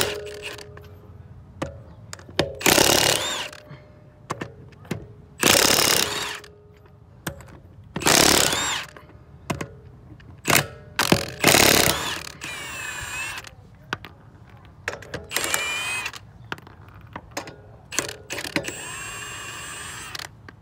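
Milwaukee Fuel cordless impact wrench hammering lug nuts loose on a truck wheel, in about five loud rattling bursts of roughly a second each, followed by a few lighter whirring runs in the second half.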